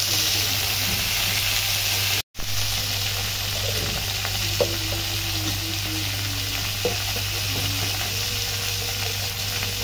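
Sliced potatoes and green chillies frying on a flat iron griddle (tawa): a steady sizzling hiss, cut off for an instant about two seconds in.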